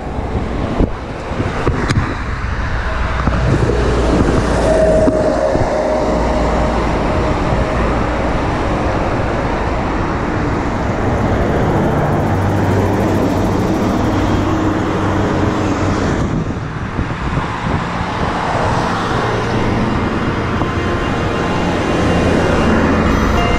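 Steady road traffic noise: cars going by.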